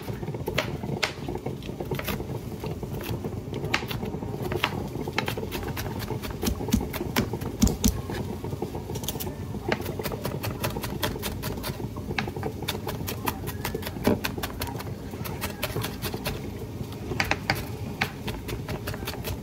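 Kitchen cooking sounds: many sharp clicks and taps, uneven and thickest in the middle stretch, over a steady low rumble, as zucchini and onion cook in a frying pan.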